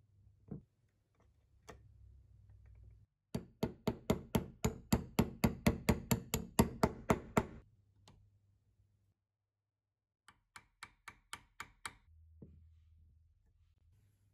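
Two quick runs of sharp taps on the cast-iron pipe vise parts, about five or six a second. The first is long, some two dozen taps growing louder. The second, near the end, is a shorter run of about nine.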